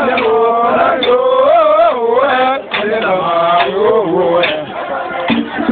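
Mourners' voices chanting a funeral chant, in sliding, wavering phrases that break off every second or two.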